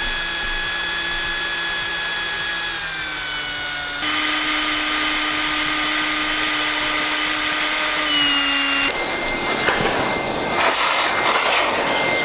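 Power drill running and working into the metal of a PC case to take out the hard drive bay. Its whine drops in pitch twice as it loads up, then gives way about nine seconds in to a rough, rattling grind.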